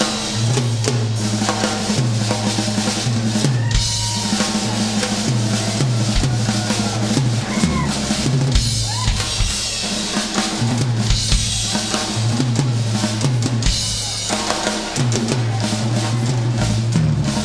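Live rock band playing, with the drum kit to the fore: steady bass drum and snare hits over an electric bass line.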